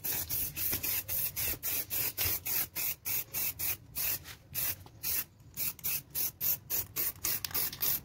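Aerosol can of Cosmos clear lacquer spraying in short, repeated hisses, about four a second, as it is swept back and forth coating a painted panel.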